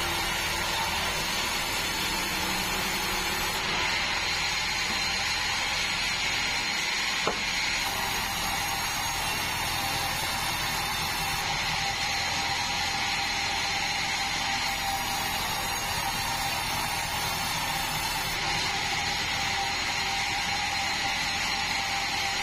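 Band sawmill running steadily, its blade sawing through wood. A single sharp knock about seven seconds in.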